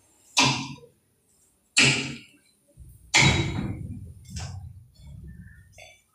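Four sharp thuds, roughly a second and a half apart, each dying away quickly; the last is weaker.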